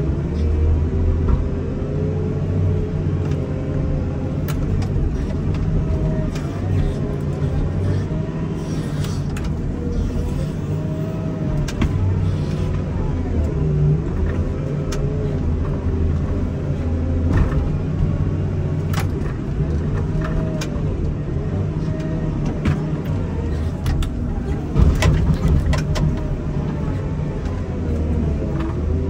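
Komatsu wheel loader's diesel engine running under load while pushing snow, its pitch rising and falling as the throttle changes, with scattered clanks and knocks from the machine and its snow pusher.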